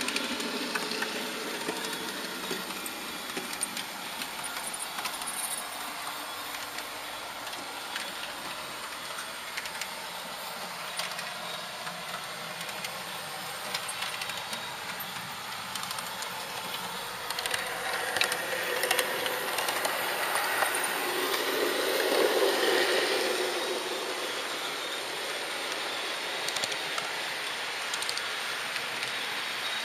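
HO-scale model train running along its track, a steady running and rolling noise with scattered faint clicks. The noise swells briefly about two-thirds of the way through.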